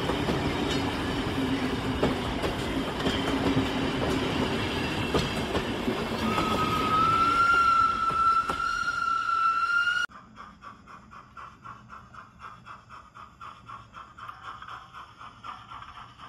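Steam train sound effect: steam hissing with a low rumble. About six seconds in, a single-note locomotive whistle sounds for about four seconds, rising slightly in pitch. The sound cuts off abruptly and gives way to quieter, rhythmic clickety-clack of wheels over rail joints.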